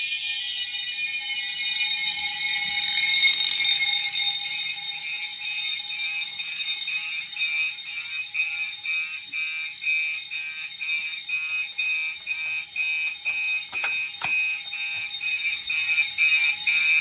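Several fire alarm signalling devices, horns and strobes on a test panel, sounding together in alarm after the pull station has been pulled. There is a mix of steady high tones and a fast pulsing horn beat of about three pulses a second, really loud, with a couple of sharp knocks about two-thirds of the way through.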